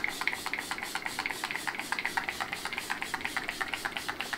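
A small cardboard box waved quickly back and forth in front of the face as a hand fan: an even run of quick flapping whooshes, about six or seven a second, drying freshly sprayed setting spray.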